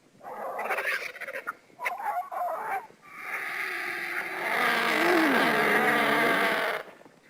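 Vulture calls: two short raspy calls in the first three seconds, then one longer call of about four seconds.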